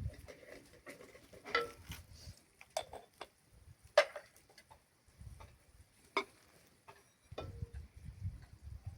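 Kitchen utensils clinking and knocking against cookware in scattered single strikes, the loudest about four seconds in, with a low rumble in between.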